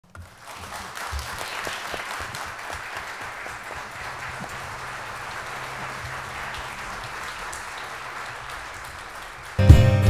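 Audience applauding steadily. Near the end the music starts suddenly and loudly: a laouto plucked and a viola bowed together.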